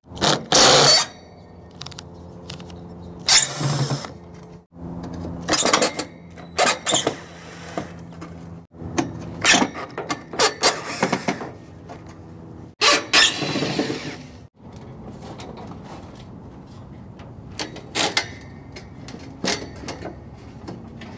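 Cordless drill running in short spurts, its motor whine starting and stopping, as screws are backed out of a truck's cowl panel. Between the runs come a dozen or so sharp knocks and rattles of metal and plastic as the panel is worked loose.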